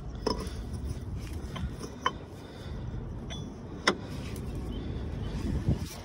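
A crankshaft pulley counter-hold tool being fitted onto the crank pulley of a BMW M47 diesel engine: a few sharp clicks of metal on metal, the loudest about four seconds in, over a low steady rumble.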